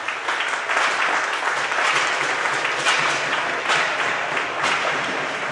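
Spectators applauding, many hands clapping at once.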